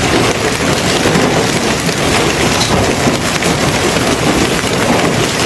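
Heavy rain pouring down and pelting hard surfaces: a loud, dense, steady hiss with countless small impacts.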